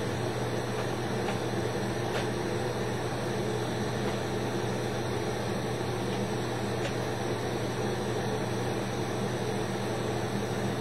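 Steady hiss of a glass lampworking torch flame over a constant low hum.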